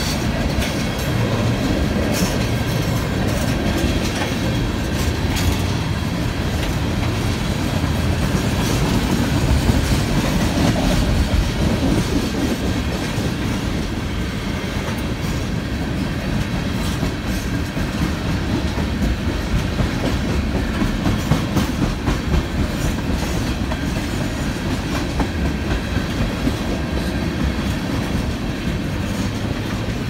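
A freight train of tank cars rolling past: a steady rumble of steel wheels on the rails, with the repeated clickety-clack of wheels crossing the rail joints.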